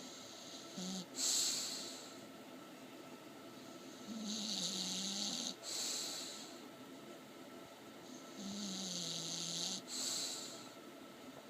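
English bulldog snoring in its sleep, a slow repeating cycle about every four seconds: a drawn-out snore with a low hum that dips in pitch, then a short, sharper breath that is the loudest part.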